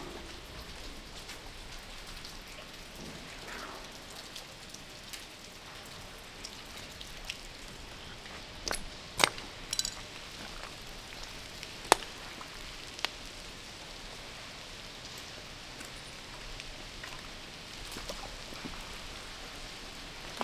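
Steady hiss of water with scattered sharp drips, a handful of them bunched together near the middle.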